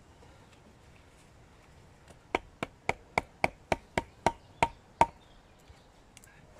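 A baton striking the spine of a small bushcraft knife (9 cm blade, 3 mm thick) about ten times in quick succession, roughly four blows a second, driving the blade into wood.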